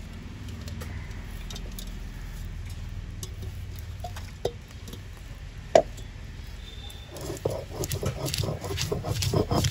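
A few knocks of stone and utensils, the loudest a sharp one near the middle, then from about seven seconds in the steady rapid scraping of a hand grinding stone, stone rubbed back and forth over stone to grind a spice paste.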